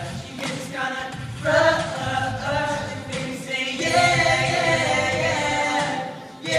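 Young male vocal group singing a cappella in harmony, several voices together with no instruments; about four seconds in they hold a long chord, which drops away briefly just before the end.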